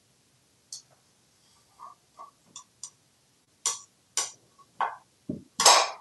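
Small plastic bird figures clicking and knocking against a hard plastic nest bowl as an African grey parrot picks at them with his beak: about ten separate short clicks, with a low thump and then the loudest clatter near the end.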